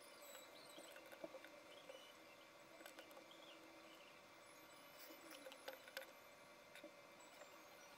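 Near silence, with a few faint clicks and taps of cardboard jigsaw puzzle pieces being picked up and pressed into place on a wooden table.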